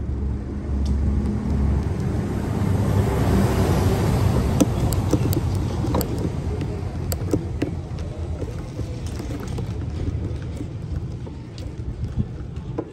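A motor vehicle engine running with road noise that swells about three to four seconds in, followed by scattered sharp clicks and knocks.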